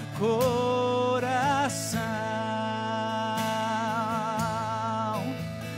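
Male voice singing a Portuguese Catholic worship song over sustained instrumental backing. He sings a short phrase, then holds a long note with a gentle vibrato on the word "coração" for about three seconds before it fades.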